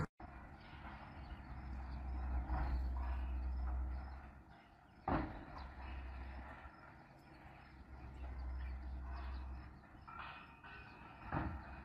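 Low outdoor wind rumble on the microphone, swelling and easing twice, with two sharp knocks, one about five seconds in and one near the end.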